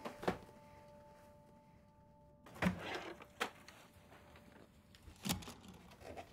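Hard plastic cassette storage cases being lifted and handled, giving a few sharp clacks and knocks spaced a second or two apart. Soft held piano notes sound under the first two and a half seconds and cut off suddenly.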